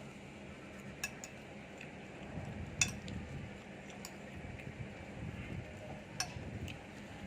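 Cutlery clinking against dishes a handful of times at irregular intervals, over a low steady background rumble.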